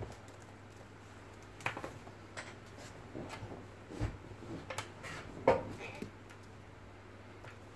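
Irregular light taps and clicks on a wooden desk as a red lory plays with a crumpled paper ball, with a heavier knock about four seconds in and the loudest tap about five and a half seconds in.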